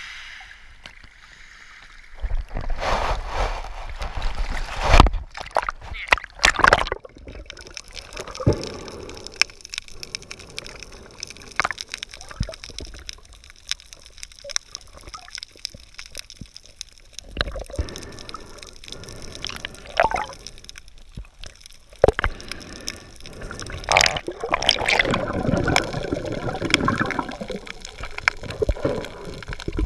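Water sloshing and gurgling around an action camera at and just under the surface, with irregular splashes and sharp knocks against the camera.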